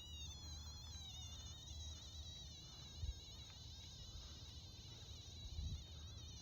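TriField meter's audible alert tone: a thin, high electronic whine that wavers continuously in pitch as the radio-frequency reading fluctuates near the transmitter towers, stepping up slightly in pitch at the start. Under it runs a low wind-like rumble with two soft thumps.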